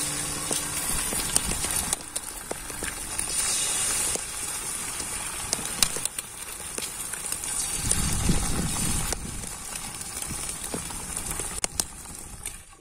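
Eggs frying with sausage in a pan over a campfire: steady sizzling, with frequent sharp pops and crackles from the spitting fat and the burning wood.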